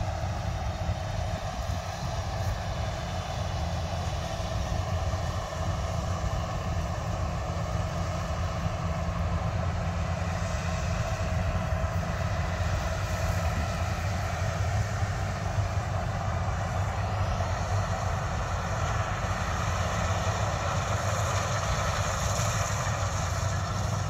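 Tracked combine harvester running steadily while cutting paddy: a constant low engine hum with machine noise over it, and a brighter hiss coming in about two-thirds of the way through.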